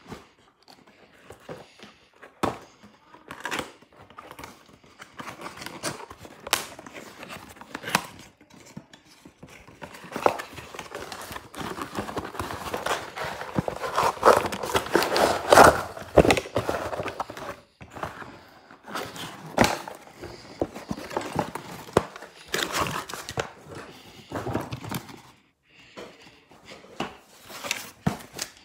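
Cardboard toy box and its plastic packaging being handled and opened: crinkling plastic, rustling and tearing with scattered clicks and knocks. The busiest, loudest stretch of rustling comes about midway.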